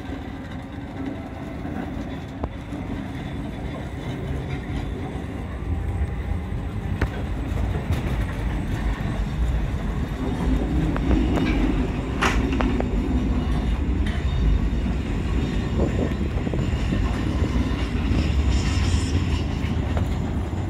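Historic type A tram rolling along the rails while towed by a battery-electric shunting trolley, a steady low rumble that grows louder about six seconds in. There is one brief sharp high sound a little past halfway.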